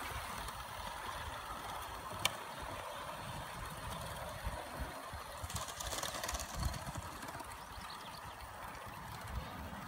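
Live-steam model of A4 Pacific 60024 'Kingfisher' running along the track with a faint steady hiss, over irregular low thumps. A single sharp click comes about two seconds in.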